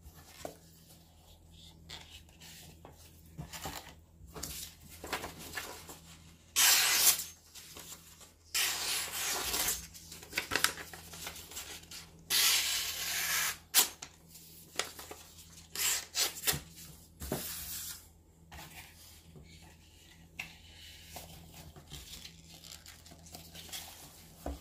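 A sheet of paper being sliced with a bulat (wootz) steel hunting knife: a run of about six cuts, the longest lasting over a second, with quieter paper rustling and handling around them.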